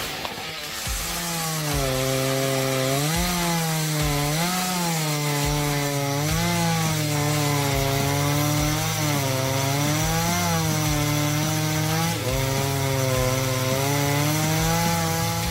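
Chainsaw engine running at high speed while cutting wood. From about a second in, its pitch dips and recovers every second or two as the chain loads up in the cut.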